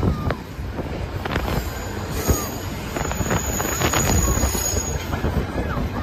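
Canadian Pacific Holiday Train's freight cars rolling past close by: a steady low rumble with sharp wheel clacks every second or so and brief, thin wheel squeals.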